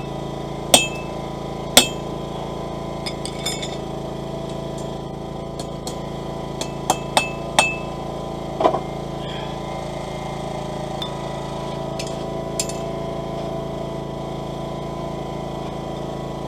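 Small hammer striking a hand punch held on hot steel over an anvil, driving a hole through the end of a forged hook. About ten sharp metallic blows come at uneven intervals, the two loudest near the start, some with a brief ring, over a steady hum.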